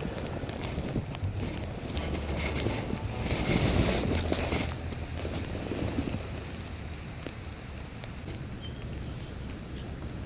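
Wind buffeting the microphone outdoors as a low, uneven rumble, gusting stronger a few seconds in and easing off after about six seconds.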